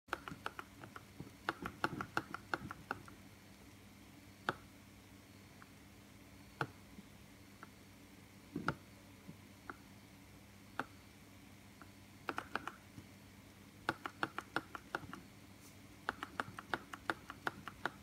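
A 2017 MacBook Pro knocking inside at the display hinge as the laptop is tilted from side to side. The knocks are quiet and sharp, some single and a second or two apart, others in quick runs of several a second. The owner suspects the metal display hinges, expanded by hot air from the exhaust vents beside them.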